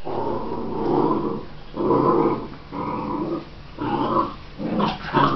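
Mongrel puppies growling as they tussle over food, a run of about five rough growls, each under a second long, roughly one a second.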